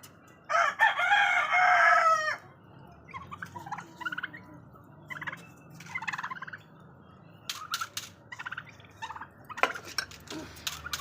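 Backyard poultry calling: one loud call about half a second in that lasts nearly two seconds and falls at its end, then short, scattered clucks and calls from the flock.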